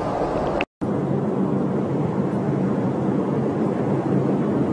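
Steady engine drone and road noise of heavy road-train trucks on the move, heard from a vehicle driving alongside, with some wind. The sound drops out for a split second a little under a second in, then carries on unchanged.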